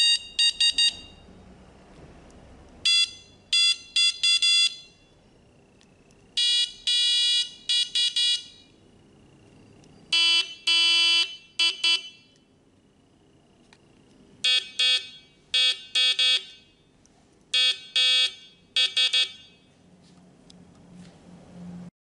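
Buzzy beeps from a homemade Morse code practice oscillator's speaker, keyed by hand on a microswitch in groups of short and long tones. The later groups are sent at a lower pitch than the first.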